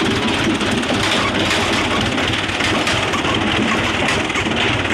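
Fiat 640 tractor's diesel engine running steadily, heard from the driver's seat.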